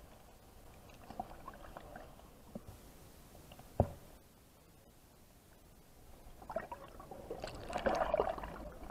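Faint, muffled water sounds heard underwater, with one sharp click about four seconds in and a louder stretch of muffled sound near the end.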